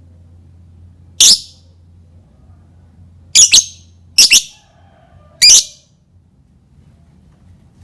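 Lovebird giving short, loud, high-pitched calls: one, then two quick pairs, then one more, six in all.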